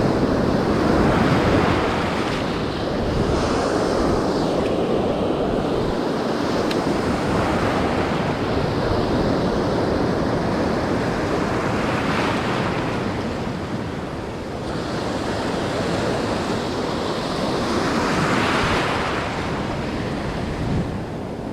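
Ocean surf washing onto a sandy beach: a steady rushing wash, with two louder breakers swelling and fading, one about halfway through and one near the end.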